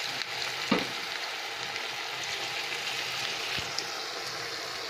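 Battered cauliflower pieces deep-frying in hot oil in a kadai: a steady sizzle of bubbling oil, with one brief knock under a second in.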